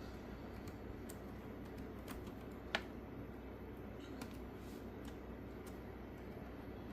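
Scattered light clicks of keys being pressed on a laptop keyboard, a few seconds apart, with one sharper click near the middle, over a faint steady low hum.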